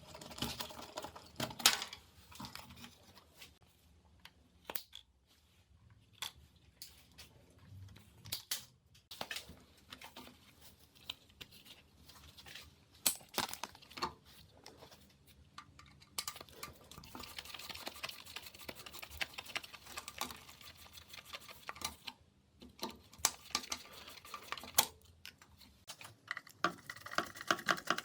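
Irregular clicks, knocks and clinks of small hard objects being handled, like tools and metal parts on a workbench. Partway through there is a stretch of denser scraping or rustling.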